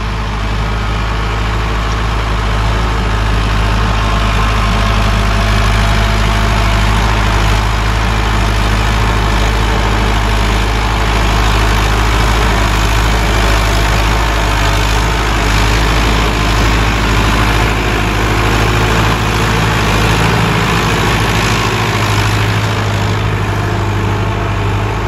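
Sonalika 750 DI tractor's 50-horsepower diesel engine running steadily under load as it pulls a tine cultivator through damp soil, growing louder as the tractor comes near and passes.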